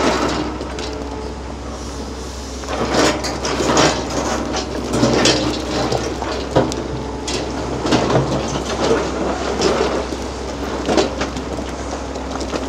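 Large crawler excavator's diesel engine running steadily while its bucket scrapes and breaks into hard Black Jurassic rock. Stones clatter and knock repeatedly from about three seconds in.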